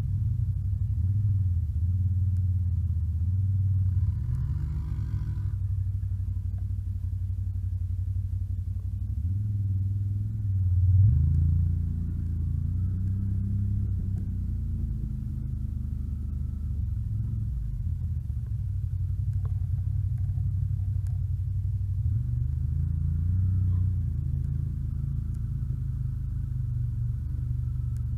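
ATV engine running under way, its pitch rising and falling with the throttle, with a louder rev about eleven seconds in.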